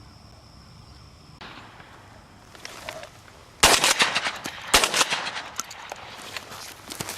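Two close shotgun shots about a second apart, fired at passing doves, followed by rustling and scattered clicks.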